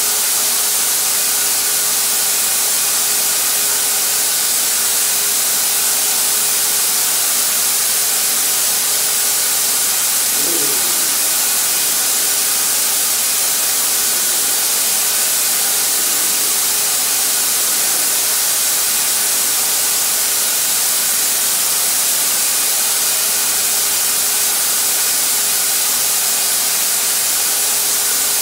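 Harbor Freight HVLP turbine paint sprayer running steadily: a constant rush of air from the spray gun and hose, with a faint steady whine from the turbine underneath.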